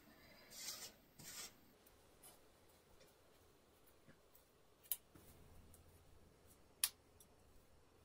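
Faint rustling of hands working through long hair and handling a hairbrush, with two short sharp clicks about five and seven seconds in.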